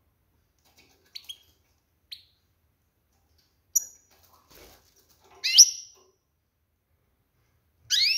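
Female European goldfinch calling: a few short, high chirps, then a sharp note and two louder sweeping calls, about two and a half seconds apart near the middle and the end. These are the twittering contact calls a breeding-ready hen gives to stir males into song.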